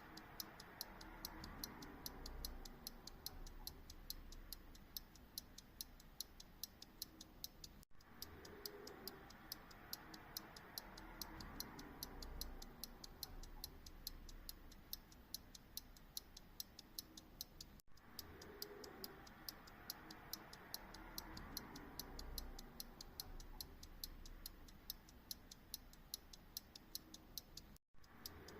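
Verge fusee pocket watch ticking faintly in a steady, quick rhythm, with a brief break about every ten seconds.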